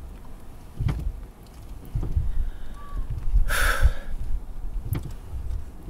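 Low rumble inside a car's cabin, with a few soft knocks and a brief rush of noise about three and a half seconds in.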